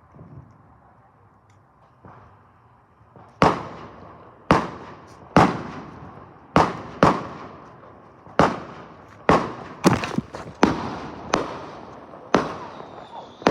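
Fireworks going off in a rapid series of about a dozen sharp bangs, roughly one a second, starting about three seconds in, each with a short echoing tail.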